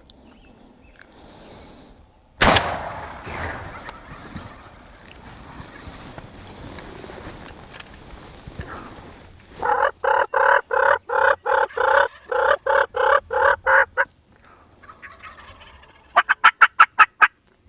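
Wild turkeys calling: a long run of evenly spaced yelps, about three or four a second, then a fast rattling gobble near the end. A single sharp knock sounds about two seconds in.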